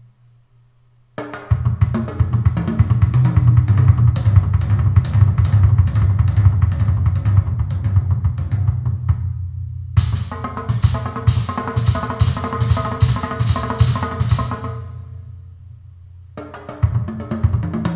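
Recorded drum-kit solo played loud through Eltax Vintage PWR 1959 floorstanding speakers driven by a Denon PMA-790 amplifier. Busy kit playing with bass drum and snare starts about a second in. After a short break comes a run of evenly spaced ringing pitched strikes, about three a second, then a quieter spell before the full kit comes back near the end.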